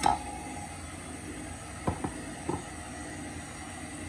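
KitchenAid stand mixer motor running steadily with its dough hook turning flour and milk into dough. A sharp knock at the very start and three lighter knocks about two seconds in.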